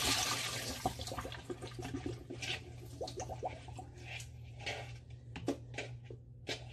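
Kitchen tap running water, fading out over the first second or so, followed by scattered splashes, drips and light knocks.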